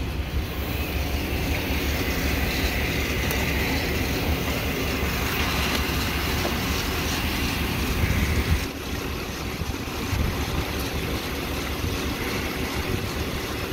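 Pickup truck engine idling steadily under the open hood, with a steady hiss over it that stops about nine seconds in.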